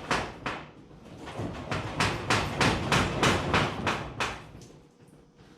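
Repeated hammer blows: a couple of strikes, then a quick run of about ten at roughly four a second that stops about four seconds in.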